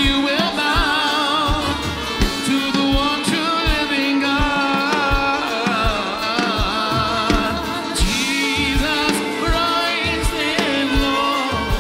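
Live worship band playing: singers hold long, wavering notes over a steady drum beat of about two thumps a second and a sustained low keyboard or bass note.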